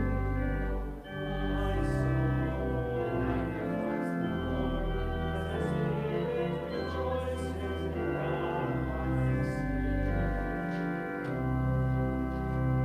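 Church organ playing music in sustained chords, with deep bass notes changing every second or two.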